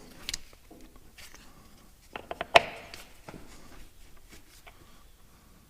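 Scattered light clicks and knocks, with a cluster of sharper clicks about two seconds in and one loud knock about two and a half seconds in.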